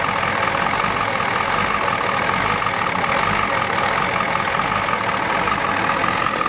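Ford 7.3L IDI naturally aspirated V8 diesel of a 1993 F-250 idling rough and shaking, heard close up under the open hood, with a steady high whine running through it. The owner takes the rough running for injection timing being out, and thinks the injection pump needs replacing.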